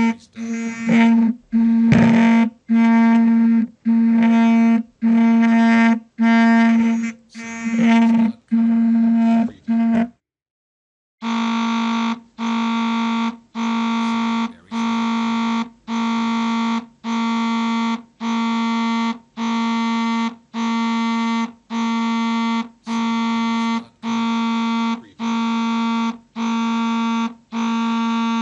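A cell phone's vibration motor buzzing in short repeated pulses, roughly one every 0.7 seconds. The pulses are uneven in loudness at first, stop for about a second around ten seconds in, then resume at an even, steady rhythm.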